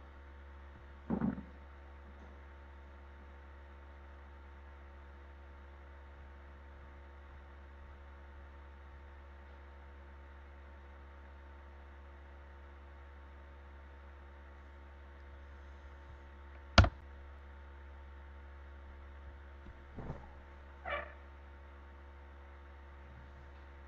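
Steady low electrical hum, like mains hum picked up by the recording setup. One sharp knock stands out about 17 s in, and there are a few faint short noises, about a second in and near 20 to 21 s.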